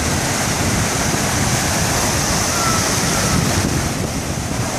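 Sea surf and waves rushing steadily, with wind buffeting the microphone.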